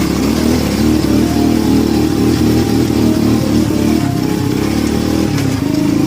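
Enduro dirt bike engine running steadily under throttle.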